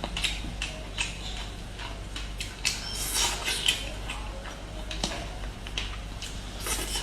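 Close-miked eating sounds of someone eating king crab legs: a run of short sharp clicks and crackles from the shell and mouth, over a steady low hum.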